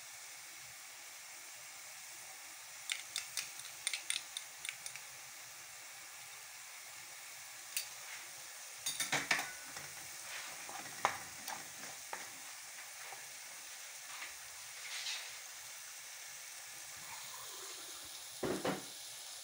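Tomato sauce sizzling steadily in a pot while a wooden spoon stirs and scrapes through it, with clusters of sharp taps against the pot and a louder knock near the end.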